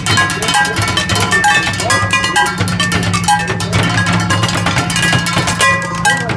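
Drummers playing a fast, dense rhythm with sticks on upturned plastic water-cooler jugs set on wooden bar stools, with metal dog pans struck on the pavement adding short ringing tones.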